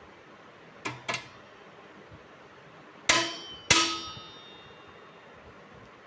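Steel main stand and its return spring on a Honda Activa scooter being fitted back on. Two light metallic clicks come about a second in, then two loud ringing clangs come a little after three seconds, about half a second apart, as the spring is hooked on and the stand snaps up into place.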